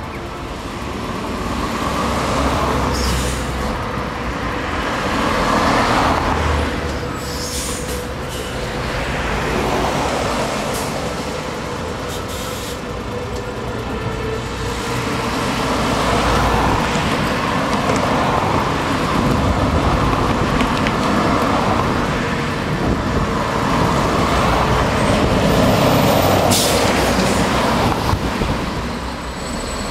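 Articulated lorry's diesel engine running at low revs as it creeps out of a junction, with a few short air-brake hisses, while cars and lorries sweep past on the main road one after another.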